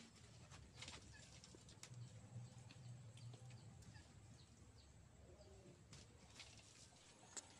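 Near silence with faint, scattered taps and scuffs of bare hands and feet gripping a tree trunk while climbing.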